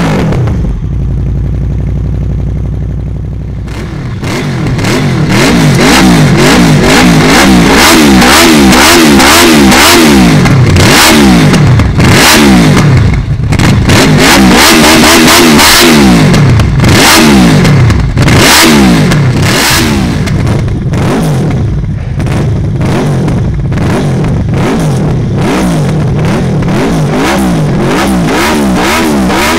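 Honda VFR800F's V4 engine through a GPR slip-on silencer, idling for a few seconds and then revved again and again in quick blips, the pitch rising and dropping back each time.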